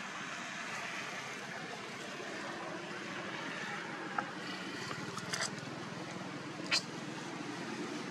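Steady rushing outdoor background noise, with a few brief sharp clicks in the second half.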